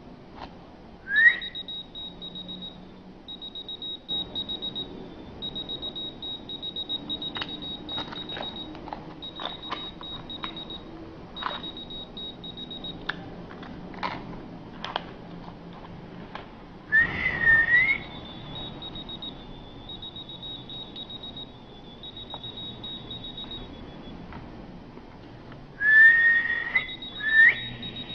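A person whistles briefly and a whistle-activated key-finder keychain answers with several seconds of rapid, high-pitched beeping. This happens three times, with the whistle rising in pitch.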